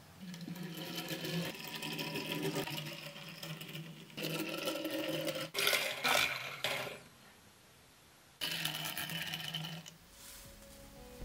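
Steady mechanical whirring that breaks off about halfway into a few sharp clicks and a short quiet gap. It then runs again for a couple of seconds and stops near the end.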